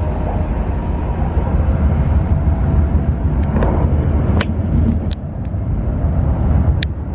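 Steady low rumble of a Shinkansen train running, heard from inside the passenger car. A few sharp clicks and knocks in the middle and near the end.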